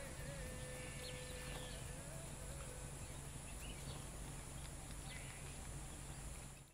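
Faint rural field ambience: a steady high hiss with a few short bird-like chirps scattered through it.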